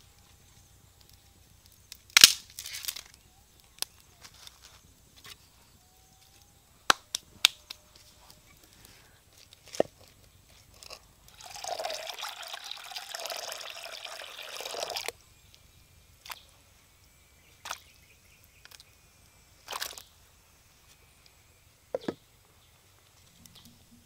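Water poured from a height into an earthenware pot, splashing for about three and a half seconds midway. Around it come scattered sharp knocks and clicks, the loudest a couple of seconds in.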